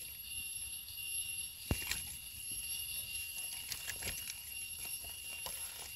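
Steady high-pitched insect chorus, with scattered light crackles and one sharper snap a little under two seconds in from footsteps and hands in dry forest leaf litter.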